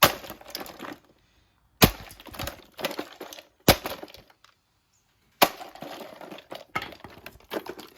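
Four hard blows smashing an Anko fan heater, a little under two seconds apart. Each is a sharp crack followed by the clatter and crackle of breaking parts, and the clatter runs on after the last blow.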